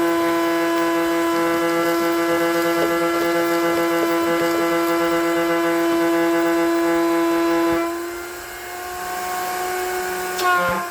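Electric shop-vacuum motor running with a steady whine. About eight seconds in, its pitch sags slightly and it gets quieter before picking back up.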